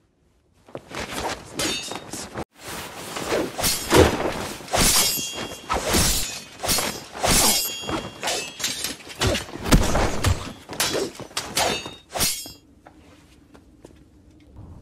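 Sword-fight sound effects: a fast series of metal blade clashes, each ringing briefly, starting about a second in. The clashes stop about two seconds before the end, and a faint low hum remains.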